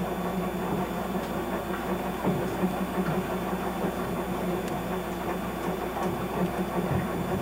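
A motor yacht's inboard engine running steadily under way: a continuous rough drone with a steady low hum.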